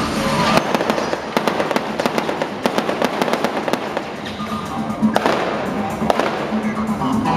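A rapid, irregular string of sharp pops and crackles over loud background music.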